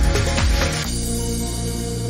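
Electronic background music: a steady drum beat drops out about a second in, leaving held synth chords.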